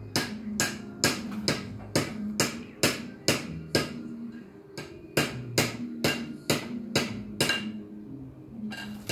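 Background music with a steady percussive beat, about two sharp strikes a second over low pitched notes. The beat pauses briefly near the middle and again near the end.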